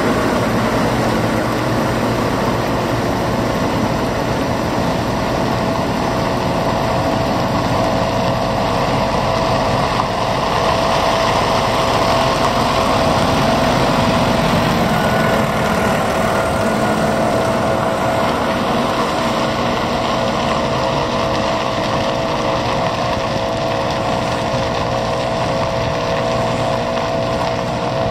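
Diesel engines of road surfacing machinery running steadily: a Bomag pneumatic-tyred roller and the surfacing lorries, with a steady whine over the engine noise. It grows louder around the middle as the roller passes close by.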